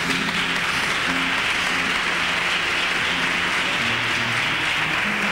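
A crowd applauding, a dense steady clapping, with faint low instrument notes underneath.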